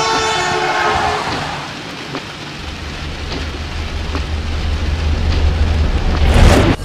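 Vehicle horn sounding over heavy rain, fading out within the first second. The rain hiss goes on, and from about two and a half seconds in a deep rumble builds to a loud surge near the end.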